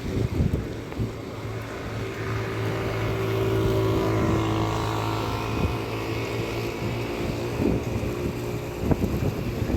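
A motor vehicle's engine passing by with a steady hum that grows louder, peaks after a few seconds and fades away, over street and wind noise.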